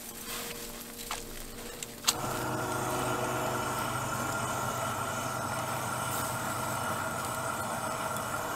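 A few faint clicks, then an engine or motor that begins abruptly about two seconds in and runs steadily.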